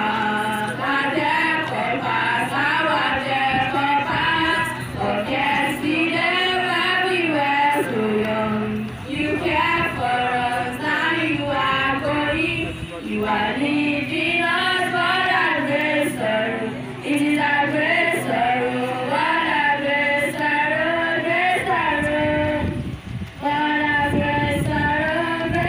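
A group of voices singing a song together, over steady held low notes, with a brief break about three quarters of the way through.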